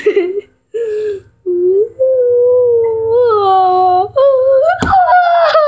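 A girl's voice wailing and whimpering in pretend crying: long drawn-out tones that climb in pitch near the end. A sharp knock comes about five seconds in.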